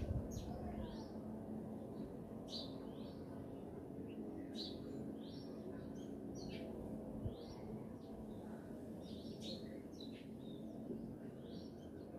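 Small birds chirping: many short, quick calls that often sweep downward and repeat throughout, over a steady low hum. There is a brief knock at the start and another about seven seconds in.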